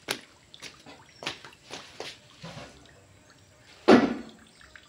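Water dripping irregularly into a stainless-steel sink basin that holds a shallow pool, with one much louder knock about four seconds in.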